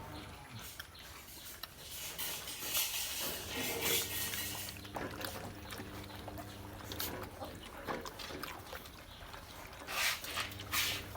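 Month-old American Akita puppies feeding on goat milk, with irregular wet lapping and slurping.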